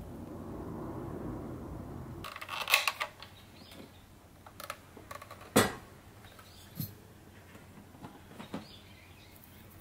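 A low steady hum that stops about two seconds in, then a handful of scattered clicks and knocks, the loudest about halfway through: kitchen utensils, hand-mixer beaters and a spatula, touching a glass mixing bowl.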